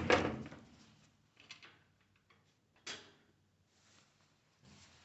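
Handling noises from working on the washer's cabinet: a loud scrape at the start, then a few short, softer scrapes and clicks.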